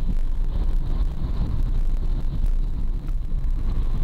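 Steady low rumble of a road vehicle driving, heard from inside its cabin.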